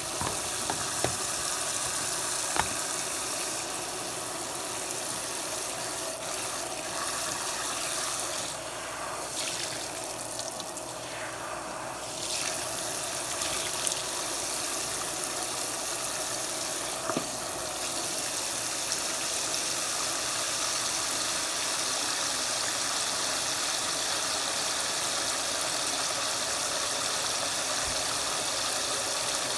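Faucet spray head running a steady stream of water into a sink and splashing down the drain, with a couple of short knocks in the first few seconds.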